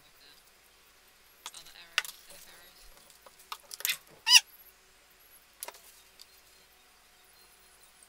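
Scattered light clicks and taps of craft supplies being handled on a tabletop, with one short, high squeak about four seconds in.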